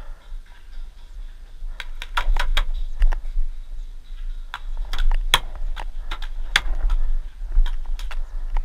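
Paintball gunfire: sharp cracks in irregular bursts, several in quick succession about two seconds in and again around five seconds in, with single cracks later, over a steady low rumble of wind on the microphone.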